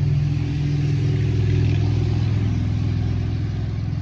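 An engine running with a steady low hum, dropping off a little toward the end.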